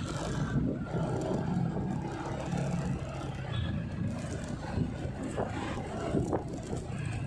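City road traffic: motor-vehicle engines running steadily under a constant rush of tyre and road noise, with a few brief knocks near the end.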